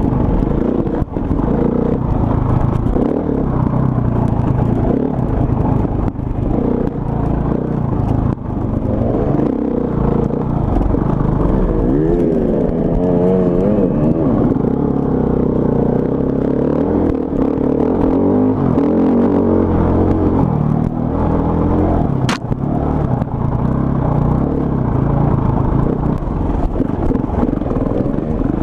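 Enduro motorcycle engine heard from on board the bike, revving up and down over and over as it rides a bumpy dirt trail, with clatter from the bike over the rough ground and a single sharp knock about three-quarters of the way through.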